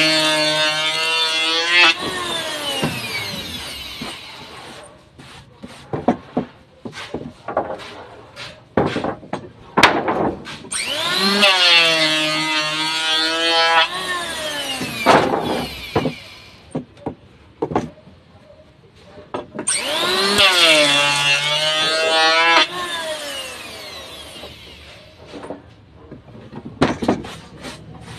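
Electric hand planer switched on three times, each run lasting about three seconds: the motor winds up to a steady whine while planing the wooden door jamb, then winds down. Between runs come scattered knocks and clatter of wood being handled.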